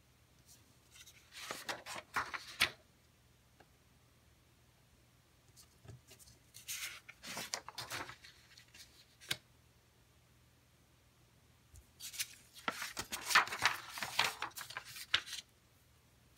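Sheets of paper being handled and flipped over, in three bursts of rustling and sliding, each one to a few seconds long, with a crisp crackle as each page is moved.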